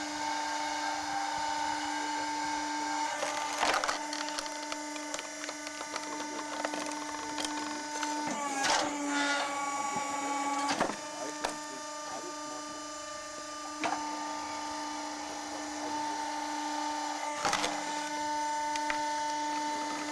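Log splitter's motor running with a steady hum and whine while the ram forces a log onto the wedge. The wood gives several sharp cracks as it splits, the loudest about nine seconds in.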